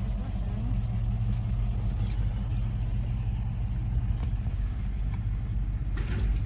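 Truck driving along, its engine and road noise a steady low rumble.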